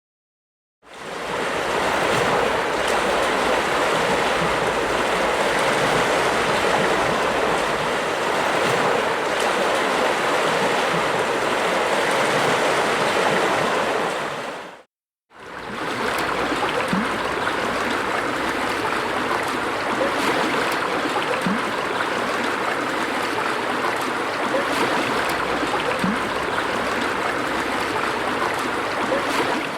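Stream water flowing in a steady, rushing babble, heard as two separate recordings of about fourteen seconds each that fade in and out with a brief silence between them. The second recording has small gurgles in it.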